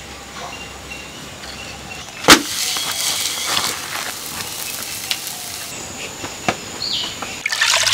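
Finger millet roti sizzling on a hot flat griddle pan over a wood fire, a steady hiss with many small crackles. A single sharp knock about two seconds in is the loudest sound.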